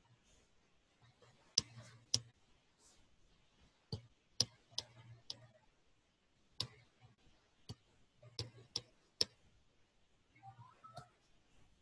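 Scattered sharp clicks, about ten at irregular intervals, from picking pen tools and colours in drawing software on a computer.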